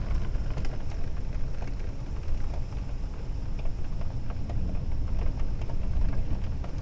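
Thunderstorm heard through a window: a steady low rumble of thunder and wind under falling rain, with scattered light ticks of rain on the glass.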